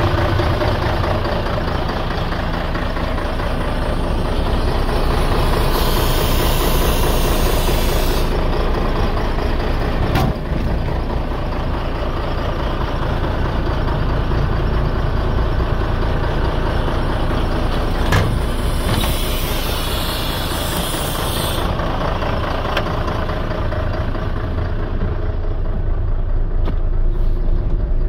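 Mercedes-Benz SK 3234's V6 diesel engine idling steadily. Two stretches of hiss about two seconds long and a couple of sharp clicks sound over it, and the sound becomes more muffled near the end.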